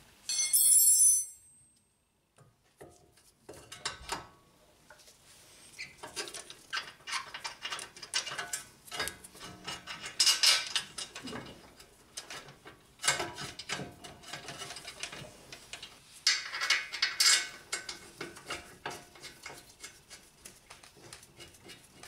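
Brake caliper and pad assembly being handled and fitted back over a front brake rotor: scattered metal clicks, knocks and scrapes, with a bright metallic ring in the first second.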